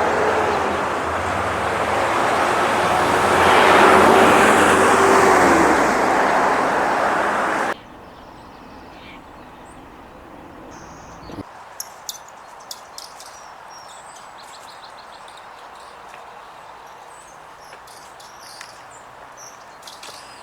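Loud rushing noise of a passing vehicle, likely a train, swelling to a peak about four seconds in, then cut off abruptly. After that, quiet outdoor background with a few faint bird chirps and small clicks.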